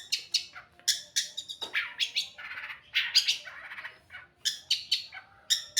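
Long-tailed shrike (cendet) singing a fast string of short, high chirps mixed with harsher, scratchy notes.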